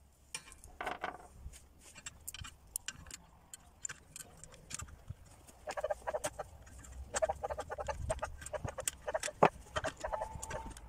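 Metal clicks and clinks of steel hinge, bolts and a tubular socket wrench being handled as the hinge is bolted to the steel base plate of a handheld circular saw, in many short, irregular knocks; a sharper knock comes late on.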